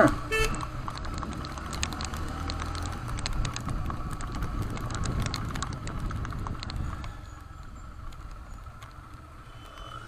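Motorcycle engine running at low speed in slow traffic, with scattered light ticks of raindrops hitting the camera. The engine sound drops a little for the last few seconds.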